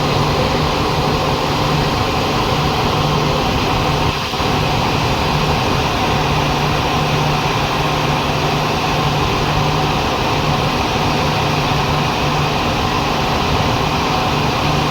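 Greaves CPCB 2 diesel generator engine of an end-on-generation power car running steadily and loudly, with a low hum that comes and goes irregularly; the uploader calls this a faulty sound. There is a brief dip about four seconds in.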